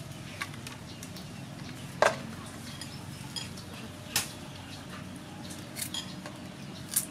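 Scattered light knocks and clicks of hands handling vegetables and a knife beside an aluminium basin, the sharpest knock about two seconds in, over a steady low background noise.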